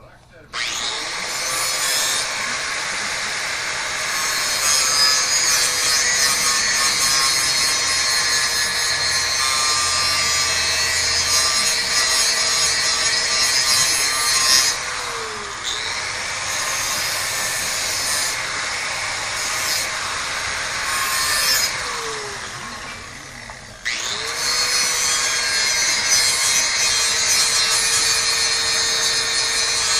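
A motor running at a steady pitch, with heavy noise over it. The pitch sags briefly twice. About three-quarters of the way through, the motor stops for a moment, then spins back up to speed.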